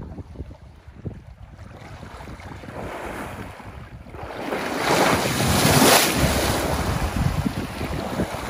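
An African elephant swimming, water sloshing and churning around him. It builds about halfway through into a loud rush of splashing as he surges forward through the river.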